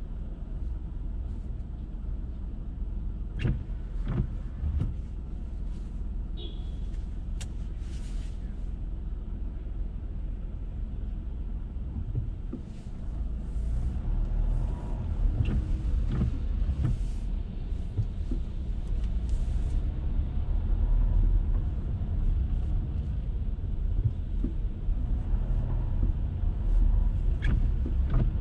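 Car driving through city streets in the rain: a steady low road rumble with a few sharp knocks and short hissing swishes of tyres on the wet road. It grows louder about halfway through.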